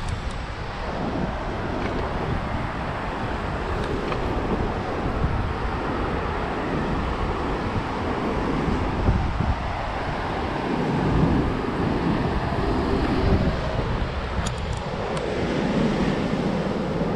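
Wind buffeting the microphone of a handheld action camera on a moving bicycle, with the rush of surf on the rocks below and road traffic alongside.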